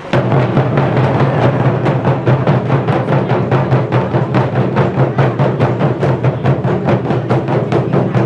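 An ensemble of taiko drums, barrel-shaped nagado-daiko struck on the head with wooden bachi sticks, played together in a fast, even rhythm of about five strokes a second, with a deep booming resonance under the strokes.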